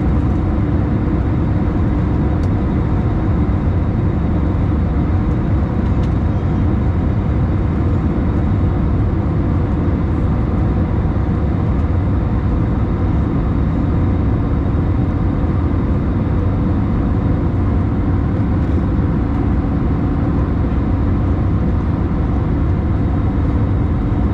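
Steady jet engine and airflow noise inside an Airbus A321's cabin during the climb after takeoff. It is a constant low drone with a faint steady hum above it.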